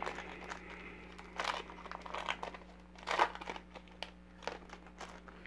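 Foil wrapper of a football trading-card pack crinkling as it is torn open and the cards slid out, in irregular rustling bursts, the loudest about one and a half and three seconds in.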